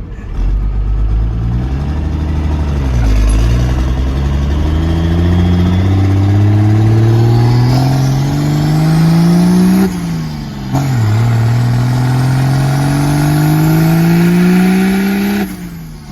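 P-pumped 24-valve Cummins inline-six diesel accelerating hard under full throttle through the gears of a manual truck. The engine speed climbs steadily, drops sharply at upshifts about three seconds and ten seconds in, then climbs again before the throttle is lifted near the end.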